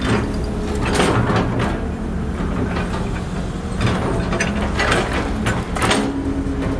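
Excavator at work: its engine runs with a steady hum, broken by several metallic clanks and scrapes at uneven intervals.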